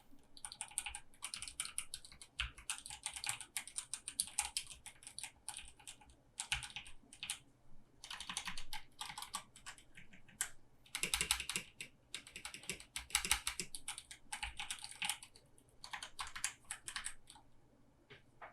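Typing on an Aqirys Mira V2 mechanical keyboard fitted with lubed Outemu Red linear switches. The keystrokes come in fast runs broken by short pauses and stop shortly before the end.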